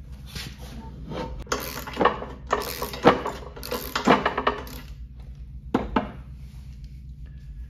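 Socket ratchet clicking in a series of short strokes, with metallic clinks, turning over a stiff 1957 Craftsman two-stroke mower engine by its flywheel nut, with penetrating oil in the cylinder to free it. The strokes stop about six seconds in.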